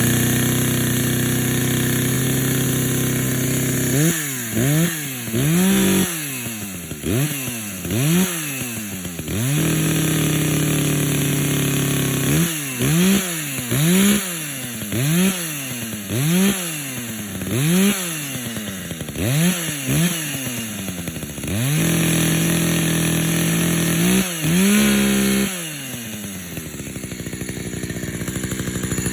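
Echo CS-590 two-stroke chainsaw running, its throttle blipped in quick revs about once a second between stretches of steady running. It settles to a lower, steady run near the end.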